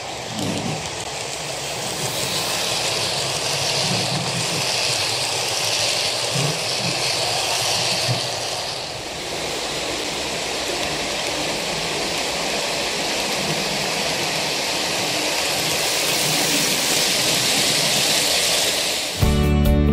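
OO gauge model diesel locomotive, a class 27, hauling Pullman coaches along model track: a steady run of motor and wheel noise that grows louder as the coaches pass close by. Acoustic guitar music starts just before the end.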